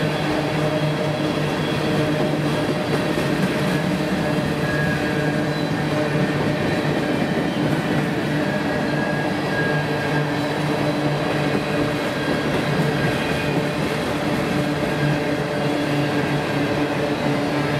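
Freight train of tank cars rolling past at close range: the steady rolling noise of steel wheels on rail, with faint steady tones running through it.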